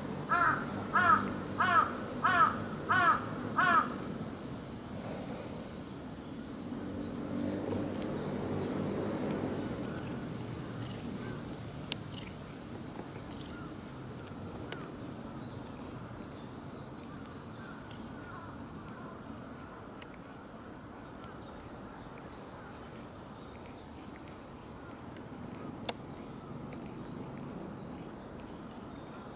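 A crow cawing six times in quick, even succession in the first four seconds, then a low, steady outdoor background.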